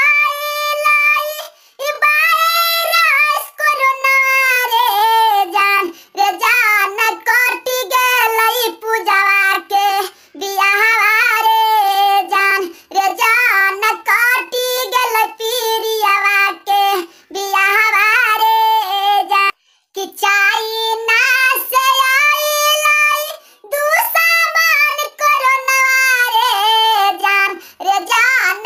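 A high-pitched, cartoon-cat voice singing a song in phrases with short breaks, with no instruments heard.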